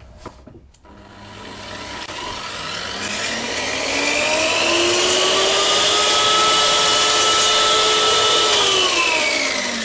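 Triton track saw's motor whirring up on its electronic soft start to a steady high whine at speed setting 6, running while it makes a shallow scoring cut in plywood, then whirring back down as it spins to a stop near the end.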